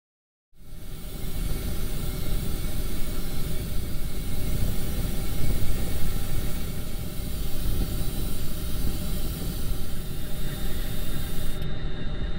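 Paint being sprayed onto plastic model parts: a steady airy hiss with a low rumble underneath, starting about half a second in, its top end briefly dropping out near the end.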